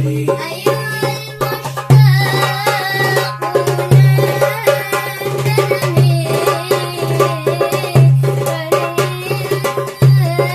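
Darbuka rhythm over a melodic accompaniment: a deep bass stroke lands about every two seconds, with quick, sharp strokes filling the beats between.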